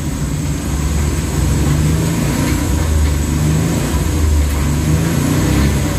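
Suzuki K6A three-cylinder engine idling steadily, heard from inside the cab, with a clanking rattle that the mechanic puts down to a very noisy timing chain and a noisy crankshaft main journal bearing that sets the engine vibrating.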